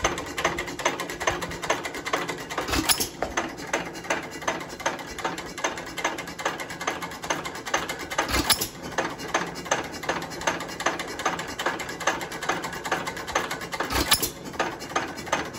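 Alamo 3 1/2 HP hit-and-miss engine running with its flywheels coasting, its valve gear and governor clicking steadily about twice a second. It fires only three times, about five and a half seconds apart, each firing a sharp bang, as a hit-and-miss engine does when it runs idle on its governor.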